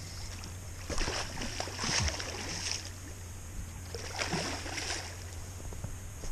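Water splashing in two irregular bursts, about a second in and again about four seconds in, over a steady low rumble of river water.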